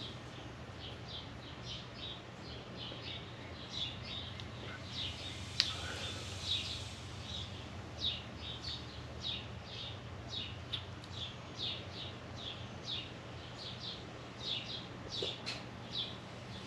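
A bird chirping over and over, short falling chirps about twice a second, over a steady low hum. A single sharp click sounds about five and a half seconds in.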